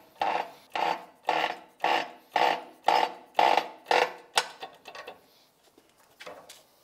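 Hydraulic shop press being pumped to press a new output-shaft bearing into its housing. It makes a rhythmic stroke sound about twice a second for about four seconds, then a sharp click and a few light clicks as the pumping stops.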